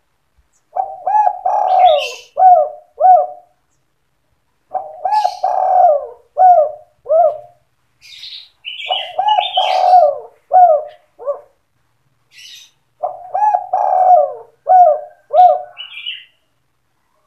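Spotted dove (tekukur) cooing its song four times in the 'sandung kuk 2' style: each phrase is a couple of quick coos, a longer drawn-out coo, then two short closing 'kuk' notes. Brief high chirps come between the phrases.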